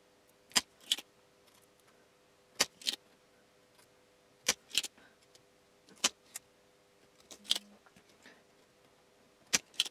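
Spring-loaded solder sucker (desoldering pump) firing: sharp snapping clicks, mostly in pairs, about every two seconds. It is pulling molten solder off the pins of a worn mouse microswitch to free it from the circuit board.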